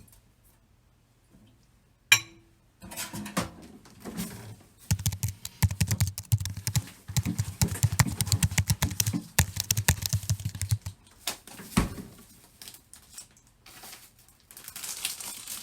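Quick run of light knocks and taps from kitchen prep work, several a second for about six seconds, with a sharp click beforehand and scattered clicks after.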